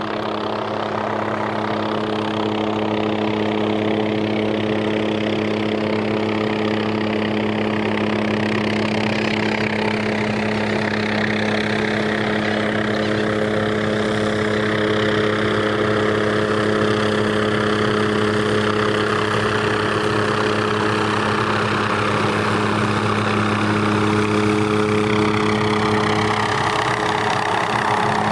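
MD 500-series light turbine helicopter flying low overhead: a steady rotor and engine drone with a held low hum, growing a little louder as it comes closer.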